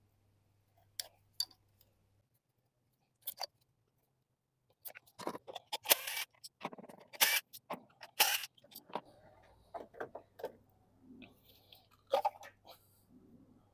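Scattered clicks and knocks of parts being handled in a car's engine bay, with a cluster of louder, brief scraping and rattling noises in the middle.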